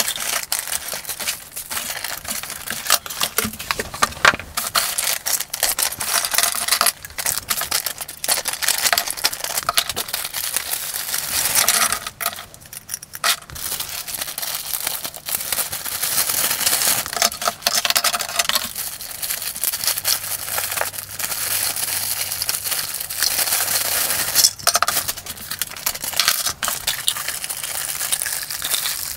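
Clear plastic polybags crinkling and rustling as they are handled and opened, with frequent sharp clicks and clacks of small plastic Micronauts toy parts being taken out and set down.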